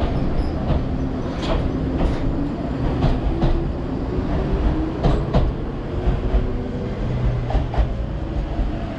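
Enoden electric train running, a steady rumble with the wheels clicking over rail joints in pairs about every two seconds and a faint low motor hum.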